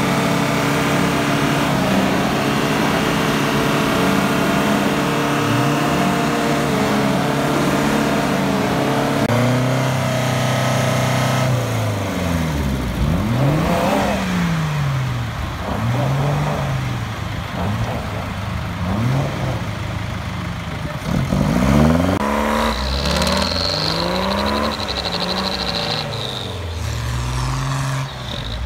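4x4 off-road engines straining under load in a tow-strap tug-of-war between a Nissan Patrol and a UAZ-469. They hold steady high revs at first; from about twelve seconds in, the revs rise and fall again and again as the throttle is worked. A high thin whine joins near the end.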